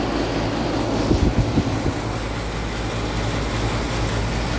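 ICP commercial air conditioner condensing unit running: a steady compressor hum under the rush of the condenser fan. A few low bumps come about a second in.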